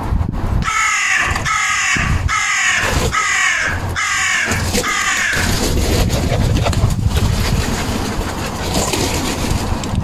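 Carrion crow cawing: a run of about six harsh caws in quick succession in the first half, then stopping, over a steady low rumble.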